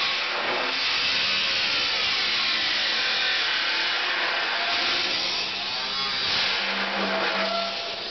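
Angle grinder cutting into the steel front end of a 1989 Isuzu Trooper: a continuous grinding hiss over the motor's steady whine, its pitch dipping briefly a couple of times.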